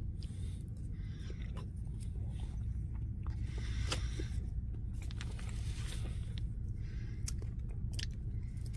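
A person chewing a mouthful of cake with buttercream frosting, with small clicks and scrapes of the packaging or utensil, over a steady low hum.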